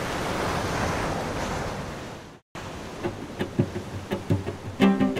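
A steady rushing noise like surf fades out about two seconds in. After a brief break, plucked string music begins: short pizzicato notes in a light rhythm.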